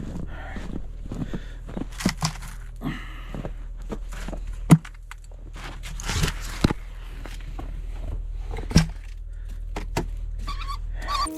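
Footsteps and scattered knocks and thumps over a steady low hum, with one sharp knock about five seconds in; the hum cuts off abruptly near the end.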